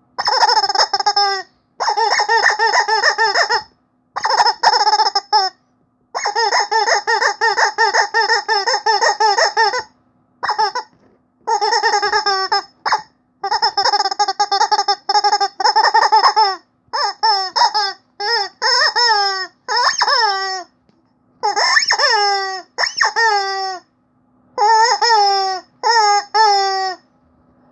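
Rubber chicken squeaky toy squeezed over and over, giving quick runs of squeaks with short pauses between them. From about halfway on, the squeaks become separate short squawks that fall in pitch.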